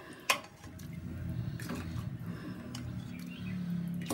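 Steel ladle clinking sharply against the inside of a steel pressure cooker as soup broth is scooped out, with a few fainter clinks after. A low steady rumble builds underneath from about half a second in.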